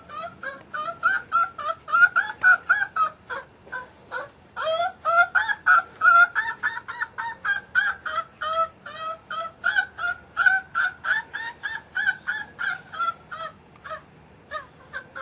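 An animal calling in a fast, unbroken series of short, honk-like calls, about four to five a second.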